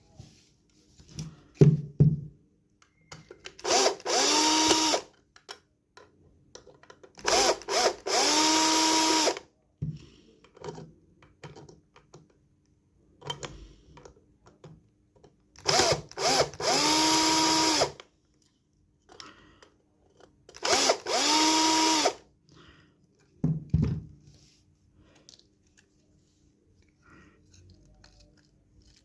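Power drill-driver spinning up in short runs of one to two seconds, each rising in pitch and then holding steady, as screws are taken out of the inverter's back cover. Small clicks and handling knocks fall between the runs.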